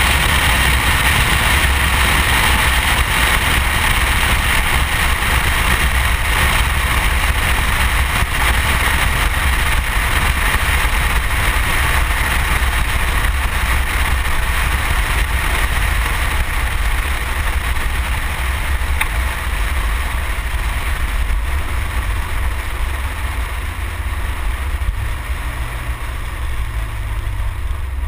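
Honda car moving along the drag strip, heard through a side-mounted camera: steady wind rush and road noise over the engine, with a heavy low rumble. The rush eases gradually as the car slows, and a low engine hum shows through near the end.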